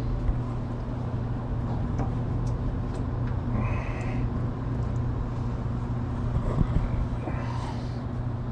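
Steady low hum in the background, with scattered light clicks and taps as hands work the fuel line fittings at the fuel filter. A brief high squeak comes about three and a half seconds in.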